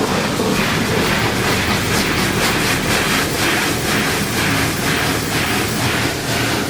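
Water Wizard 2.0 automatic car wash running: a loud, steady rushing of spray or air with a regular pulsing of about three beats a second.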